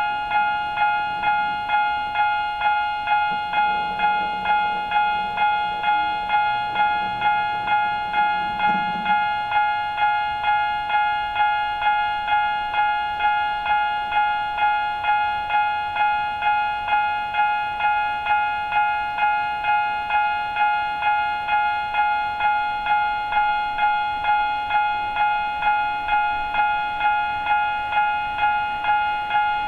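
Japanese railway level-crossing warning bell ringing its repeated 'kan-kan' tone at an even pace of about two strikes a second, the signal that a train is approaching and the barriers are down.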